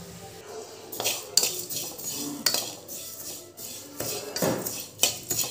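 Metal spoon scraping and knocking against a pan, stirring whole spices (coriander, cumin, mustard seeds, peppercorns) as they dry-roast. The strokes are irregular, several a second.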